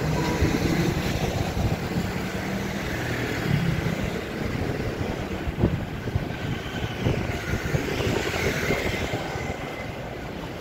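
Busy city street traffic: cars, motor scooters and a bus running past over a steady street hum, with a low engine drone in the first few seconds and a single sharp knock about five and a half seconds in.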